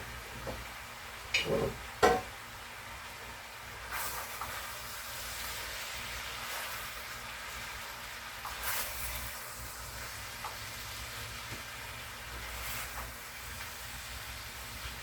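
Steady hiss of sausage and sweet potatoes sizzling in a frying pan on the stove, with a few short knocks and scrapes of utensils on the pan, the loudest about one and a half to two seconds in.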